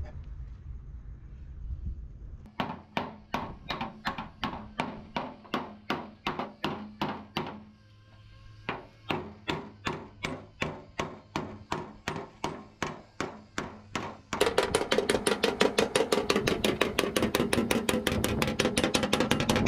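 Hammer blows on the steel sheet metal of a Tata truck cabin, knocking out accident damage: steady strikes about two or three a second with a short break in the middle. About two-thirds of the way in, much louder and faster hammering on the panel takes over.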